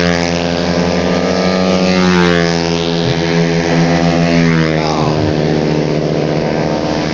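Engines of automatic racing scooters from the 130 cc matic class running hard: a steady high engine note, with pitch sweeps as scooters come by, one passing close about four seconds in.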